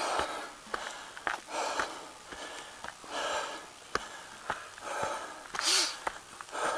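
A person breathing hard close to the microphone, a loud breath every second or so from the effort of climbing a mountain trail. Light footfall clicks on the dirt path sound between the breaths.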